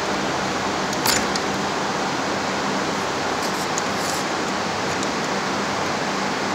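Steady background hiss with a faint low hum. There is a single sharp metallic click about a second in, and a few faint ticks around the middle, from hands working at the shaft end of a multi-stage centrifugal pump.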